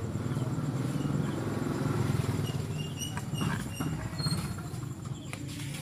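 A vehicle engine's low, rapidly pulsing rumble, growing louder towards the middle and then easing off.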